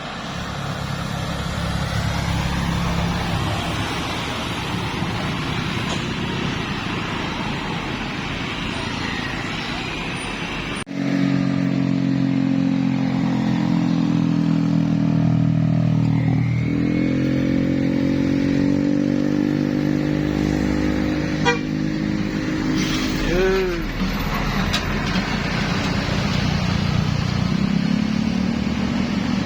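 Tour buses passing with diesel engines running and traffic noise. About eleven seconds in, a multi-note bus 'telolet' musical horn sounds a held chord for several seconds, changing notes partway through.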